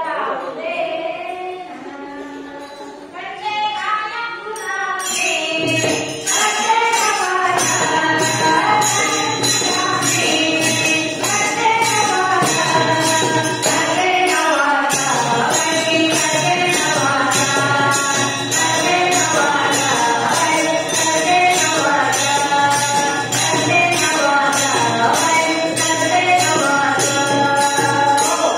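Marathi bharud devotional folk song: singing with a steady percussion beat of hand drum and jingles that comes in about six seconds in and keeps a regular rhythm.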